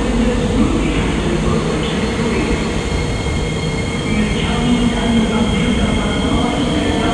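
SMRT C151B metro train moving off past the platform: steady running noise with a thin high whine throughout, growing slightly louder after about four seconds.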